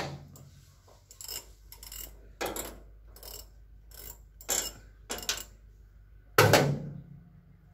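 Hand tools clicking and clanking on metal at the radiator mounts of a Caterpillar 320D2 excavator as the radiators are unbolted: a string of short metallic strokes roughly every half second, with one louder clank and thud about six and a half seconds in.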